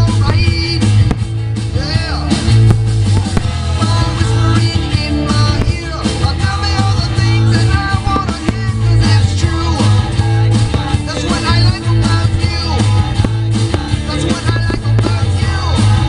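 Loud rock music with a singing voice over a steady, heavy bass.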